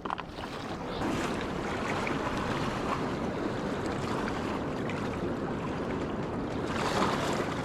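River water rushing past the bank, a steady even hiss.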